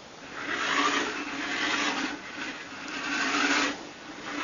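A small RC toy car's electric drive motor and gearbox whirring, its wheels rolling on a wooden floor. The car is driven in short spurts, so the whirr stops and starts again twice.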